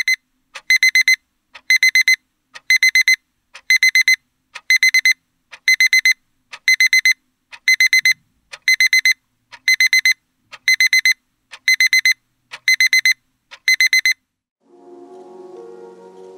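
Casio quartz alarm clock's electronic alarm beeping: quick bursts of four high beeps, about one burst a second, that stop suddenly near the end. Soft music comes in just after.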